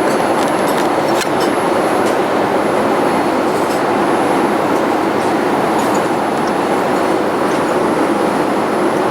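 Steady rush of engine and airflow noise heard inside a Boeing 787-8 airliner cabin, with a few faint light rattles.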